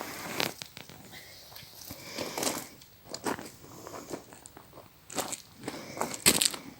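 Irregular crunching and rustling, with a sharper, louder crackle about six seconds in.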